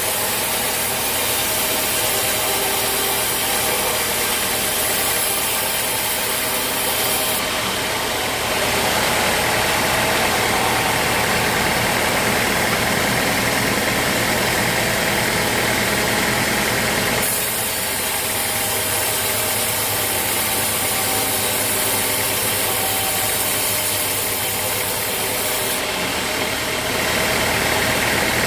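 Sawmill machinery running steadily, a continuous mechanical drone whose sound changes in stages: a high hiss drops away about a quarter of the way in, comes back past halfway, and drops away again near the end.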